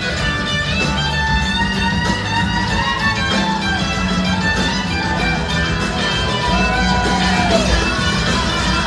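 Live rock band playing an instrumental passage: an electric guitar leads with bent, sliding notes over drums and a heavy low end.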